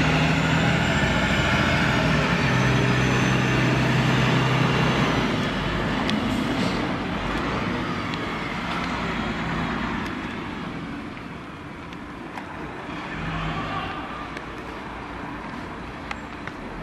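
Fire engine's engine running as the truck drives up, loudest for the first five seconds and then fading as it moves off.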